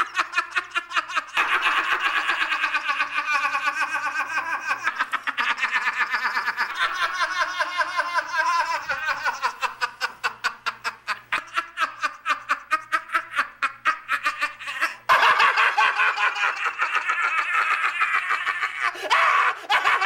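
A person laughing hard and at length, in quick rhythmic bursts of about five a second. There is a sudden break about fifteen seconds in, then the laughing goes on.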